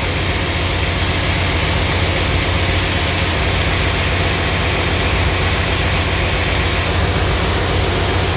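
Generator engine running at a steady level with a strong low hum, an engine that the owner says is misfiring.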